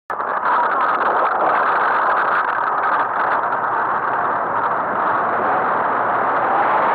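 Steady rushing noise with an engine drone as an aero-towed hang glider rolls across grass on its control-frame wheels behind the tow aircraft. Light rattling knocks from the wheels and frame run over the rough ground for the first three seconds or so.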